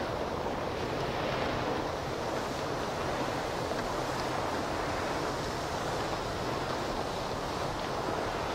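Dry rice-and-soy food mix pouring steadily off the end of a conveyor belt into a stainless-steel hopper: a continuous hiss over a steady low hum from the conveyor machinery.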